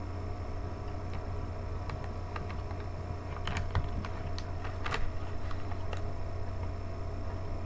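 Scattered small clicks and taps from handling and eating a dried-fruit snack, loudest about three and a half and five seconds in, over a steady low hum.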